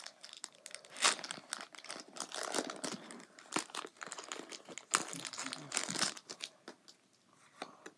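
Foil Pokémon card booster pack wrapper crinkling and tearing as it is pulled open, a string of sharp crackles that stops about six seconds in.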